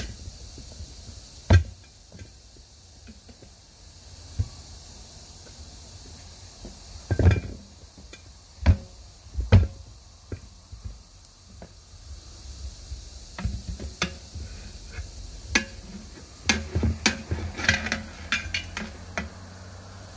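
Steel tire irons knocking and clanking against a steel truck wheel as a 19.5-inch tire's bead is pried over the rim by hand. Single sharp knocks come every few seconds, then a quicker run of metal clinks near the end.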